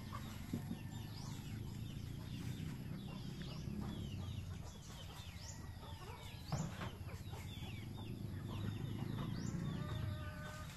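Chickens clucking, with small birds chirping throughout and a longer pitched call near the end, over a steady low hum.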